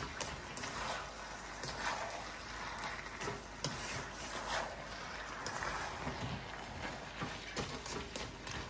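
Beef and red and green capsicum stir-frying in a non-stick wok: a steady sizzle, with irregular scrapes and taps of a plastic spatula stirring and tossing the food against the pan.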